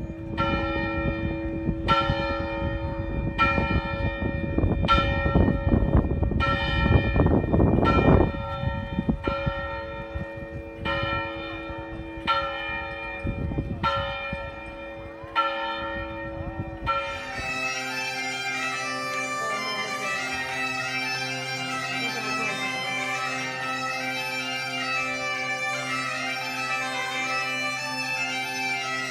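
A large church bell tolls about every second and a half, eleven strokes, with a rushing noise under the first eight seconds. After about seventeen seconds it gives way abruptly to a Galician bagpipe (gaita) playing a tune over its steady drone, under a stone archway.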